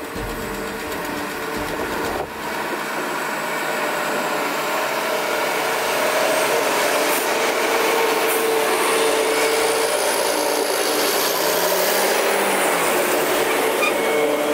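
Forage harvester working beside idling tractors, blowing chopped grass into a silage trailer: a steady, dense mechanical noise with a steady hum running through it.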